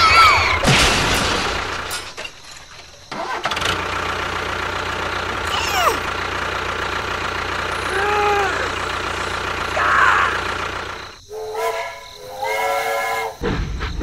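A small motor running steadily, cutting out briefly twice, with short gliding tones sounding over it and a stepped, pitched sound near the end.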